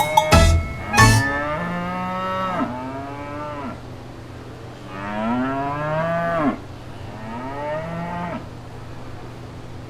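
Cattle mooing: three drawn-out moos, each bending up and then down in pitch, the last one shorter. A couple of sharp knocks come in the first second.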